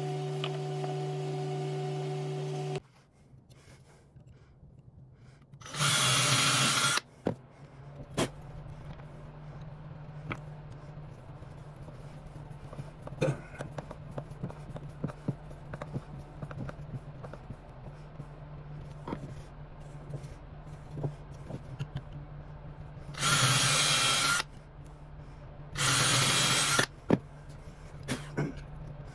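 A power drill runs in three short bursts of about a second each, with scattered light clicks and knocks between them. Before that, a steady motor hum cuts off about three seconds in.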